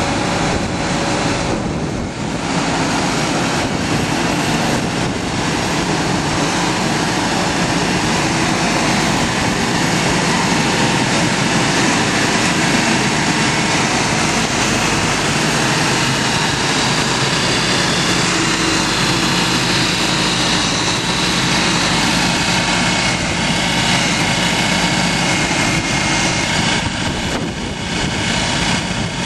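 Truck engine running as a truck-mounted sprayer drives slowly past, with a steady loud rushing noise over it.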